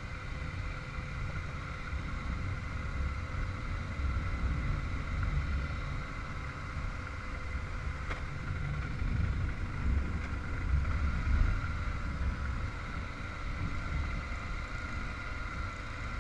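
Motorcycle running steadily on the move, with a low, uneven rumble of wind and road under a steady engine whine.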